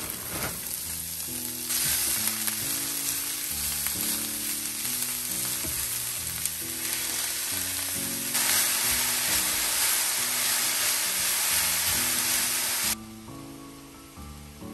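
Shredded cabbage coleslaw mix and ground beef sizzling in a hot skillet. The sizzle gets louder about eight seconds in and cuts off abruptly near the end.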